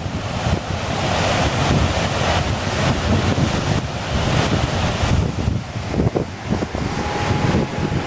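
Water pouring over a concrete dam spillway into the pool below, a steady loud rushing, with wind buffeting the microphone.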